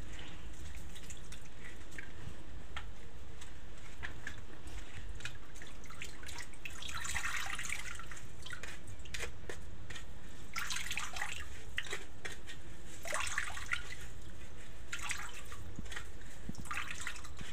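Grated coconut being squeezed by hand with water in a metal colander, with the coconut milk dripping and trickling into a pan below. Several louder wet squelches come at intervals as the pulp is pressed.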